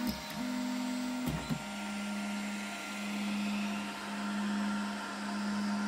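Geeetech FDM 3D printer running a print: its stepper motors hum at a steady low pitch, breaking off and shifting briefly about a second in as the print head changes moves, over the steady hiss of its cooling fans.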